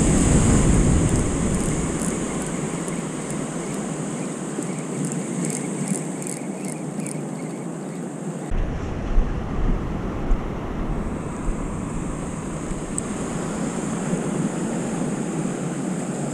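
Surf washing up on a sandy beach, a steady rushing wash with wind buffeting the microphone. A few short knocks stand out about nine to ten seconds in.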